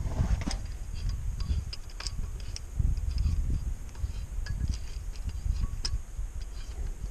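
Irregular light metal clicks and clinks as a C-clamp's screw and sliding handle are turned to press a disc-brake caliper piston back into its bore, over low rumbling and thumping handling noise.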